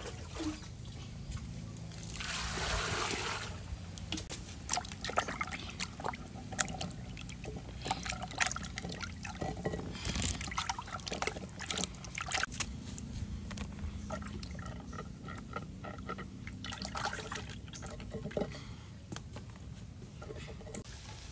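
Water poured from a dipper into a clay basin, then splashing, trickling and dripping as cucumbers are washed in the water, with a few more short pours.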